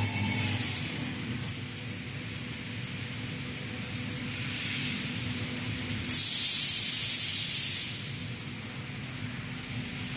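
Compressed-air hiss from the robot's vacuum suction-cup gripper, a loud burst lasting about two seconds from about six seconds in, with a fainter short hiss a second or so before it. Underneath is a steady machine hum from the laser cutting cell.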